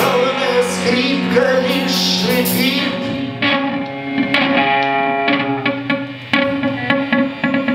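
Instrumental ending of a song led by guitar. Held notes give way, about three seconds in, to a run of separately plucked notes.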